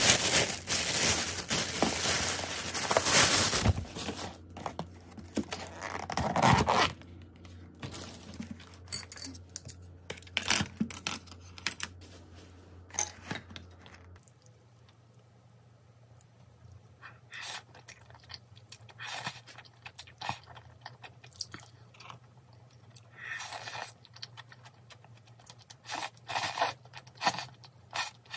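Crunchy food being bitten and chewed close to the microphone. The crunching is loud and dense for the first few seconds, then comes as scattered, quieter crunches and clicks.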